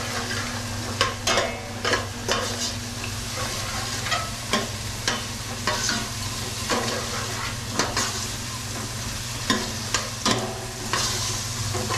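Garlic, onion and potatoes sizzling in hot oil in a pan, with a utensil clacking against the pan at irregular intervals as they are stirred.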